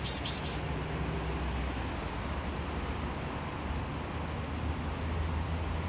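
Steady low outdoor rumble, like distant traffic with wind on the microphone. Right at the start there is a quick run of four or five short, high rustling sounds.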